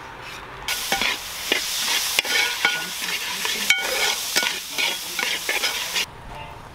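Onion-chilli masala frying in a metal pan, sizzling steadily while a metal spatula stirs and scrapes it, with frequent clinks against the pan. It starts just under a second in and cuts off abruptly about six seconds in.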